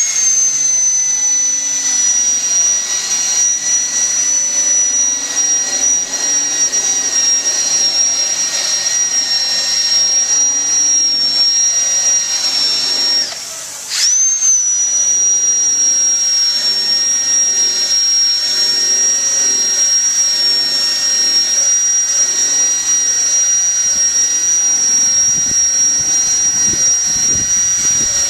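Cordless drill spinning a foam polishing pad on a headlight lens: a steady high whine that jumps in pitch as the drill starts and then settles slightly lower under load. It stops for about a second near the middle, then starts again and runs on.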